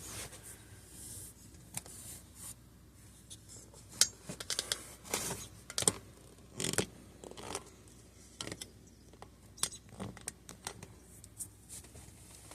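Scattered small clicks, scrapes and rustles of close handling, a few sharper ones about 4 to 7 seconds in, as a person shifts about and handles things in a small room.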